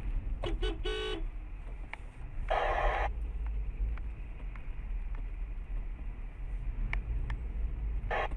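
Car horn tooting in several short beeps in the first second, over the steady low rumble of a car's engine and tyres heard from inside the cabin. A brief noisy burst comes about two and a half seconds in.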